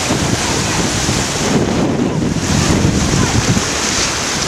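Wind buffeting the microphone: a loud, steady rushing with gusty rumbling in the low end that swells around the middle.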